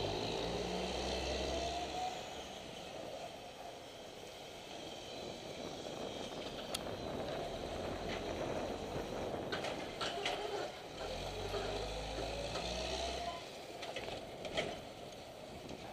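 Semi truck's diesel engine running close by as it drives and turns, rising twice with a rising whine, once at the start and again about eleven seconds in, over steady road and wind noise. A few sharp clicks come near the end.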